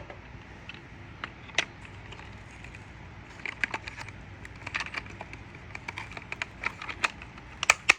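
Hard plastic parts of a Hoover SteamVac's attachment tools being handled: scattered clicks and light rattles, coming thicker about halfway through, with two sharper clicks near the end.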